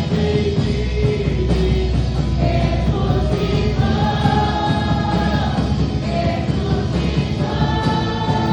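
Gospel worship song with a band and several voices singing together, holding long sung notes over a steady bass.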